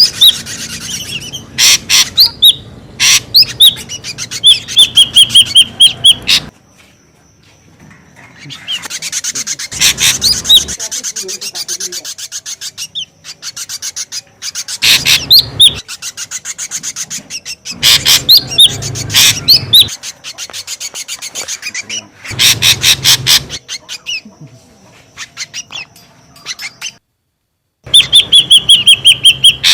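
Ashy drongo calling: loud bursts of rapid chattering notes mixed with sliding whistles, coming again and again with short quieter gaps between. It is an agitated lure call of the kind used to draw drongos in. The sound cuts out completely for about a second near the end.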